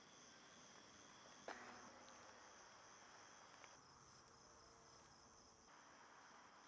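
Faint, steady insect chirring, crickets, against near-silent background, with a soft click about a second and a half in.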